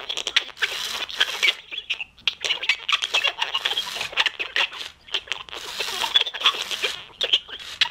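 Broken animatronic singing Santa giving out a rapid, irregular crackling and scratching noise in place of its song while its head and mouth move.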